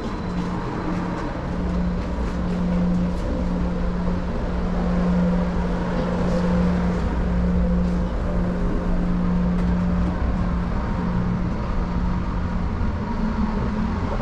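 Steady low drone of a car ferry's machinery heard inside the ship, a constant hum that swells and dips slightly over a deeper rumble.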